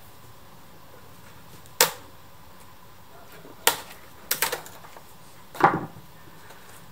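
Sharp knocks and clatters from a plastic RC boat hull and its parts being handled on a workbench: single knocks about two seconds and nearly four seconds in, a quick cluster around four and a half seconds, and a heavier, fuller knock near six seconds.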